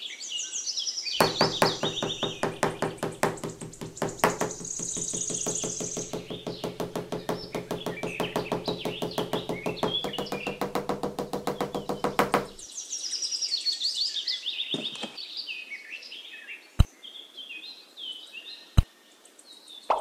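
Birds chirping throughout, with a rapid, evenly pulsing buzz for the first dozen seconds. Near the end come two sharp knocks about two seconds apart.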